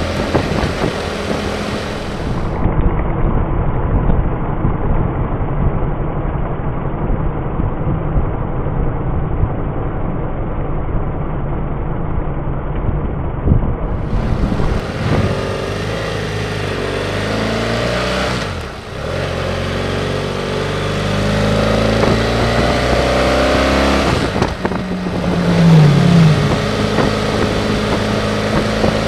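BMW F800GS parallel-twin motorcycle engine under way, heard through heavy wind rush at first. In the second half the engine note climbs repeatedly as the bike accelerates, with two brief drops in between.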